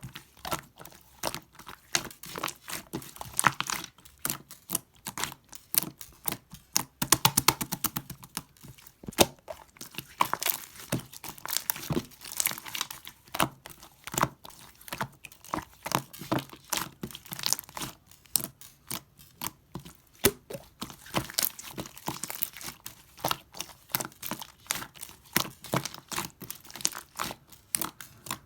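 Pink clear slime being squeezed and worked by hand, giving dense, irregular runs of small pops and clicks.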